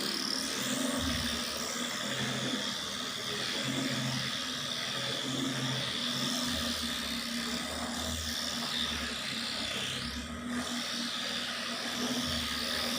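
Handheld electric dolphin massager buzzing steadily, with a low throb that comes and goes.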